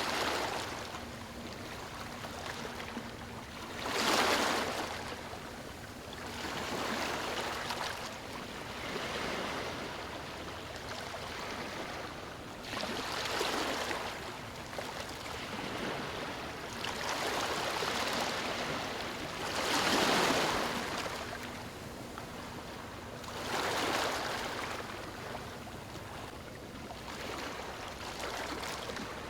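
Waves breaking on stones, each one surging in and washing back every few seconds over a steady hiss of water. The biggest surges come about four seconds in and again about twenty seconds in.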